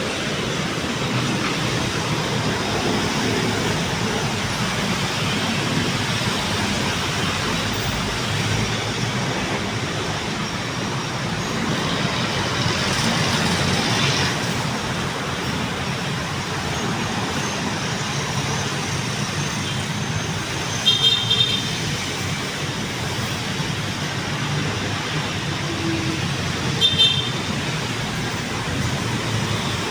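Steady city road traffic: vehicles passing along a busy boulevard. Two short horn toots sound in the second half, about six seconds apart.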